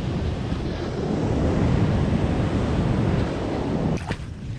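Wind buffeting the microphone over the rush of ocean surf, a dense, heavy noise that drops off sharply about four seconds in.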